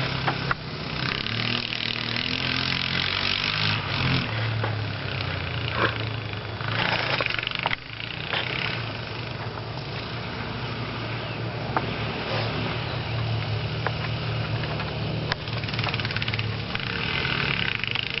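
Honda engine running under load, its speed shifting up and down several times, over a steady hiss.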